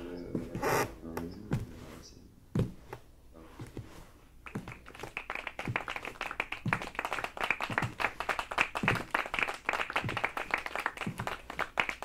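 Audience applauding, the clapping starting about four and a half seconds in and keeping up steadily, after a few scattered knocks.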